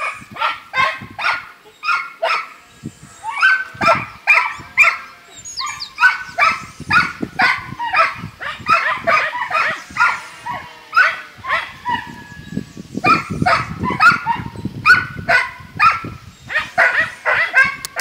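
A puppy whining and yipping over and over, several short high cries a second, in excited greeting.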